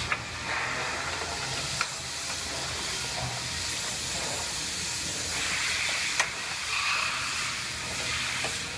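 Steady hiss of shop background noise with a low hum underneath, broken by a few light, sharp metal clicks as a steel bracket is handled and fitted against a car's front frame rail.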